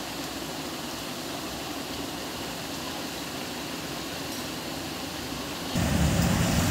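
Steady background hiss of a room with no distinct event. Near the end a louder low rumble sets in.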